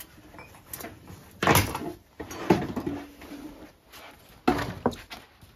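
A plywood board being handled: several loud wooden clunks and knocks, about a second apart, with a short creak between them.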